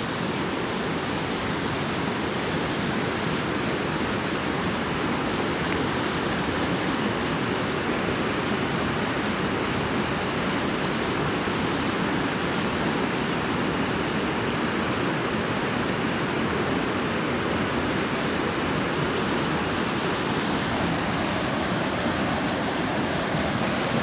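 Steady rush of water flowing fast over rocks in a creek at the foot of a waterfall, an even noise with no breaks.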